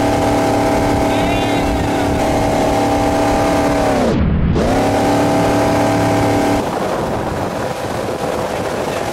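Tow boat's engine running at a steady pull speed. About four seconds in its pitch dives sharply and swings back up. About six and a half seconds in the engine tone drops out, leaving a rush of wind and water spray.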